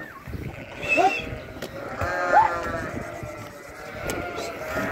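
A flock of sheep bleating, several calls overlapping, the loudest about two and a half seconds in.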